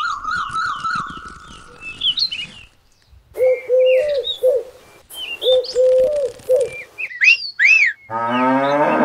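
Farmyard sound effects over a toy diorama: small birds chirping, a dove cooing in two phrases, then more chirps, and a cow starting to moo near the end.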